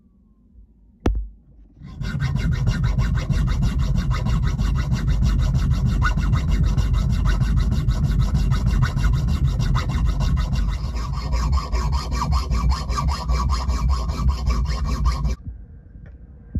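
Homemade stainless steel impeller key for an outboard water pump being filed down to fit its groove: continuous fast scraping of metal that starts abruptly about two seconds in and stops abruptly near the end.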